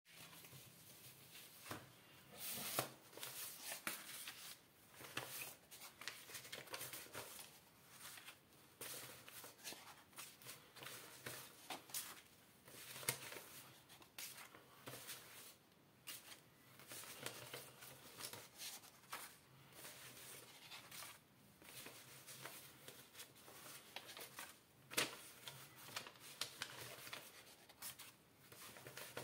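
Paper banknotes rustling and flicking as €100 notes are counted out one at a time by hand and dropped onto a table, a faint, irregular run of quick paper snaps.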